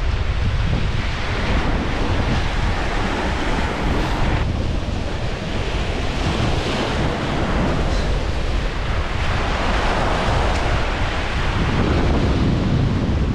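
Strong wind buffeting the microphone: a continuous heavy rumble and rushing that swells and eases in gusts.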